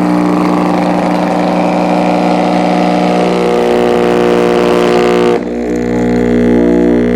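Sundown Audio car subwoofer wired straight to a wall outlet and driven by mains current, overdriven on purpose until it burns out: a loud, harsh, distorted droning hum with many overtones. About five seconds in, the harsh buzzy top end cuts out suddenly, leaving a steadier hum.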